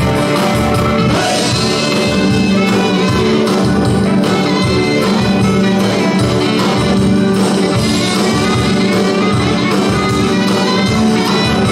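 Live band playing music with a steady drum beat.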